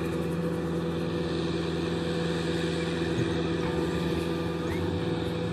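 Kubota M6040SU tractor's four-cylinder diesel engine running steadily under load while tilling a flooded, muddy field.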